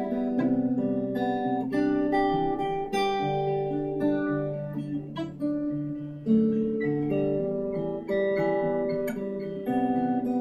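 Taylor 514ce acoustic guitar (solid cedar top, mahogany back and sides) played as a demo: plucked chords changing about once a second, with the notes left to ring into each other.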